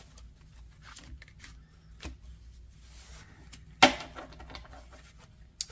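Quiet handling of trading cards: faint scattered taps and light rustles, with one sharp click about four seconds in and a smaller one near the end.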